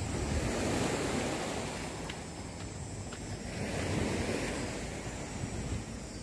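Sea waves washing onto the shore, the rush of water swelling twice, with wind buffeting the microphone.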